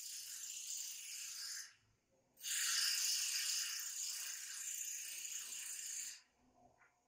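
Steady high hiss in two stretches of a few seconds each. The first stops about two seconds in; the second starts half a second later and cuts off about six seconds in.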